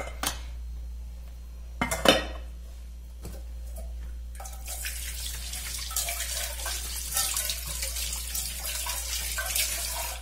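Two sharp metal clanks of a pot being handled at the sink, then, from about four seconds in, a kitchen tap running steadily into a metal pot as it is rinsed.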